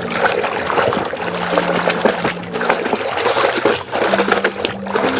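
Water trickling and splashing as a muddy toy is washed, with many small irregular splashes.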